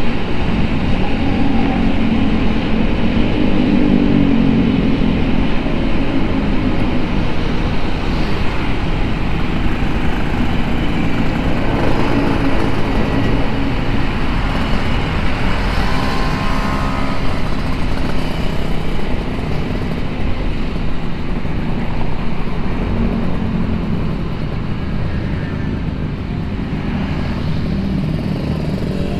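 Vespa Sprint S scooter's single-cylinder engine running at cruising speed, under heavy wind and road rush on the microphone. It gets somewhat quieter over the last few seconds.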